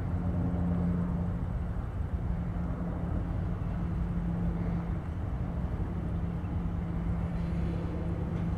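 D1-class tram approaching slowly along the track: a steady low rumble with a constant hum.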